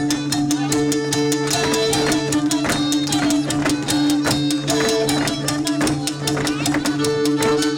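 Hungarian folk dance music: a fiddle-led tune over steady held low notes and a fast, even beat.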